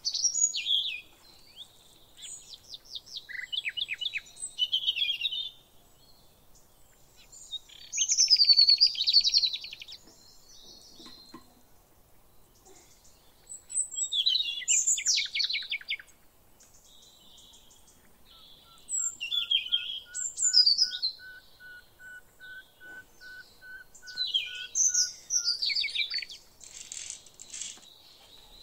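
Songbirds singing in phrases of quick chirps and trills, separated by short pauses. A long, thin, steady whistled note runs for several seconds in the second half.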